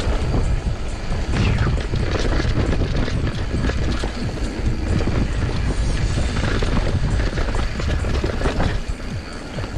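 Mountain bike rolling down a dirt trail: wind buffeting the microphone in a constant low rumble, with tyre noise and scattered knocks and rattles over bumps.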